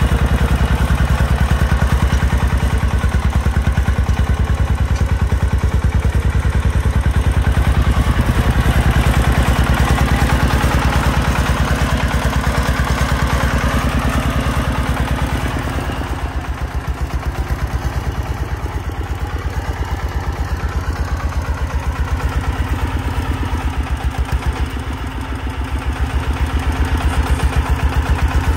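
Công nông farm truck's single-cylinder diesel engine chugging with a rapid, even firing beat as it hauls a full load of soil over rough ploughed ground. It eases off a little about halfway through and again shortly before the end, then picks up again.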